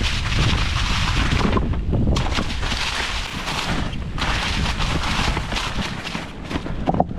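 Wind buffeting the camera microphone over the rumble and rapid knocks and rattles of a Specialized Kenevo SL 2 electric mountain bike riding over rough, rocky trail.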